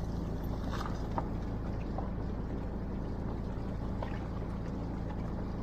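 Fishing boat's engine running steadily, with a few faint clicks over it.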